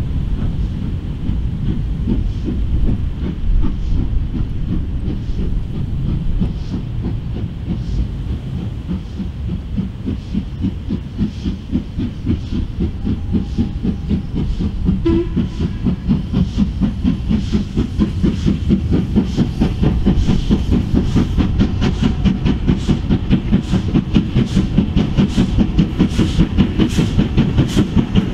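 Steam locomotive working hard with a fast, even beat of exhaust chuffs and a hiss of steam, growing louder as it approaches.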